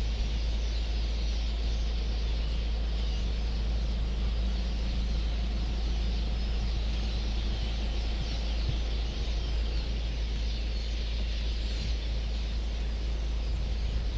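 African bush ambience: a dense, steady chorus of birds calling high up, over a constant low rumble.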